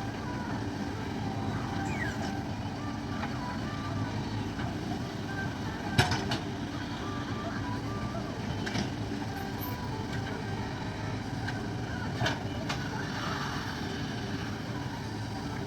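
Diesel engine of a JCB digger running steadily at a work site, with a few sharp knocks, the loudest about six seconds in and another about twelve seconds in.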